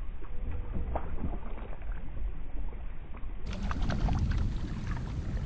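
Water sloshing against a kayak hull on open sea, with small splashes and knocks. The sound is dull and muffled for the first three seconds or so, then clearer and brighter.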